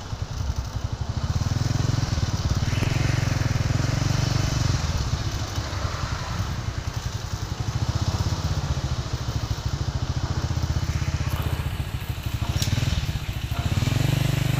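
Small motorcycle engine running at low speed, a steady rumble whose pitch rises and falls a little.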